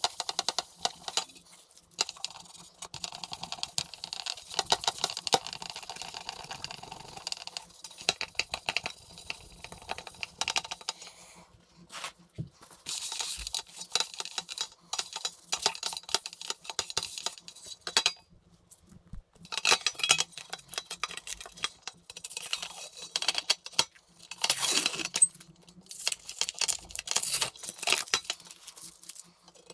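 A damp sponge scrubbing an oxidised silver plate with a citric acid mixture in rapid back-and-forth strokes. About halfway through it gives way to a paper towel rubbing the metal in short, hissing bursts.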